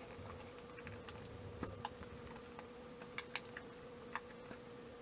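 Light, irregular plastic clicks and taps as a visor is slid into the slots on the front of a Rudy Project Wing57 aero helmet and pressed home, over a faint steady hum.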